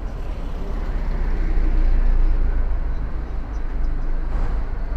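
Outdoor street rumble, like a vehicle going past, swelling to a peak about two seconds in and then easing off.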